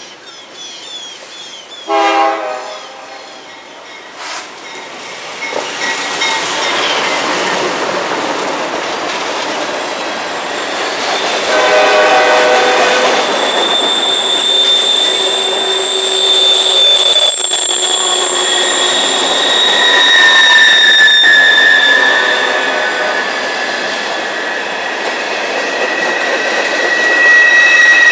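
CSX freight train of two diesel locomotives pulling 85 cars passing close: a short horn blast about two seconds in and a longer one near the middle, with the train's noise building as the locomotives go by. Then the cars roll past with a steady high-pitched steel wheel squeal on the curve.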